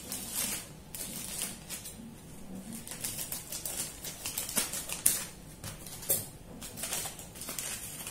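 Plastic courier mailer being cut open with scissors: irregular crinkling and rustling of the plastic, with a sharp snip or click about five seconds in.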